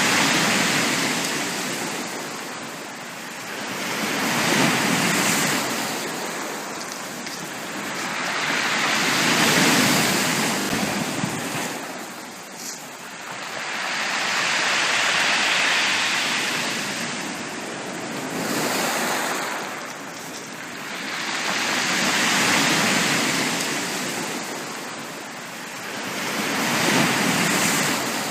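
Sea waves breaking and washing onto a beach, the surf swelling and fading about every five seconds.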